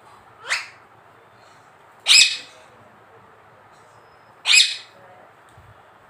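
Rose-ringed parakeet (Indian ringneck) giving three short shrill calls about two seconds apart: the first rises in pitch, the next two are louder, harsh screeches.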